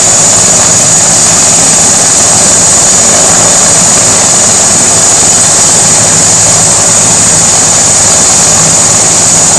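Eurocopter EC145 helicopter running on the ground with its rotors turning: its twin turboshaft engines give a steady high turbine whine over the even whoosh of the main and tail rotors. Loud and unchanging throughout.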